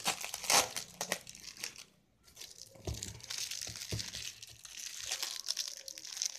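Plastic packaging crinkling and rustling as it is handled, in two spells with a short pause about two seconds in. A couple of soft knocks sound during the second spell.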